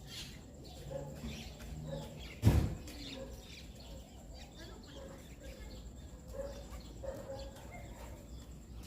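Birds chirping faintly in the background, with one brief dull thump about two and a half seconds in.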